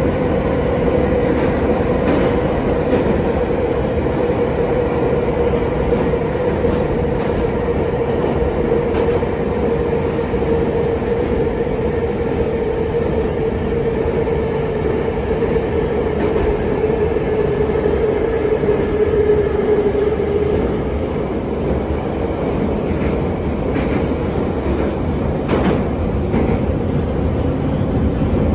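An 81-717/714 metro train running, heard from inside the carriage: a steady rumble of wheels on rail with a whine that slowly drops in pitch and fades out about two-thirds of the way through, and occasional clicks.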